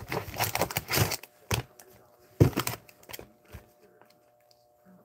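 Foil hockey card packs crinkling and rustling as they are handled and pulled from a cardboard hobby box, in a few short bursts, mostly in the first three seconds.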